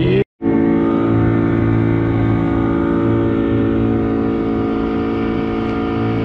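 Boat engine running steadily under way, with a brief dropout to silence about a third of a second in.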